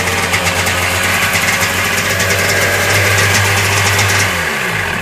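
1996 Sea-Doo XP's two-stroke Rotax twin idling steadily, then shut off about four seconds in, its pitch falling as it winds down.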